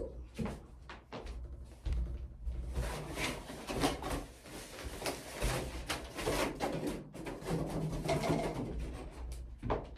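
Rustling and knocking as things are gathered up and moved off a table, with shiny plastic packaging crackling.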